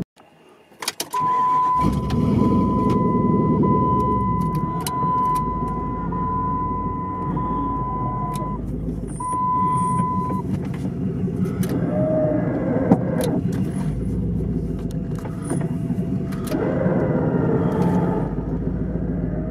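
Off-road vehicle's engine running, heard from inside the cabin as it crawls along a flooded, muddy track, with knocks and rattles from the body. The sound cuts in about a second in, and for the first half a steady electronic warning beep repeats in pulses of about a second.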